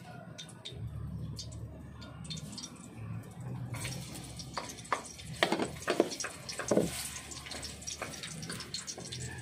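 Minced garlic hitting a hot wok and sizzling from about four seconds in, with a handful of sharp knocks as a wooden ladle scrapes it off a plate and stirs it. A low steady hum runs underneath before the sizzle starts.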